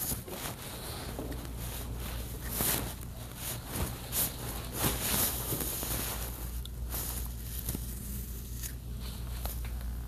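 Irregular rustling and small handling clicks over a steady low hum.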